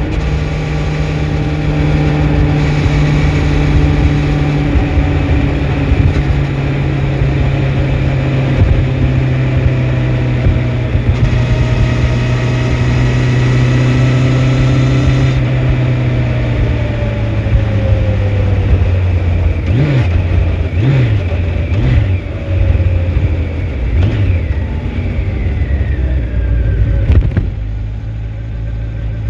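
2004 Honda CBR1100XX Blackbird's inline-four engine running at a steady cruise, then dropping in pitch as the bike slows. About two-thirds of the way in it gives three short revs, then settles lower near the end.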